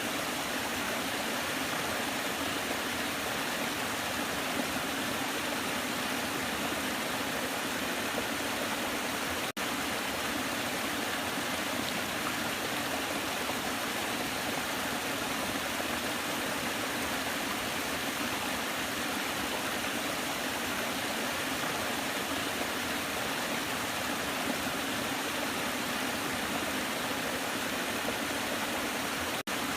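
Waterfall: water falling and splashing in a steady, unbroken rush, with two split-second gaps, one about ten seconds in and one near the end.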